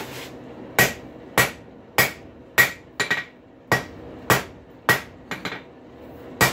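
Hand hammer blows on a forged rail spike against an anvil, straightening the piece. There are about ten ringing strikes at a steady pace of a little under two a second, with a few lighter taps in between.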